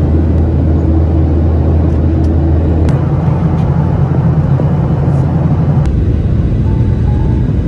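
Steady, loud low rumble of a vehicle's engine, heard from inside the vehicle. Its tone changes abruptly about three seconds in and again about six seconds in.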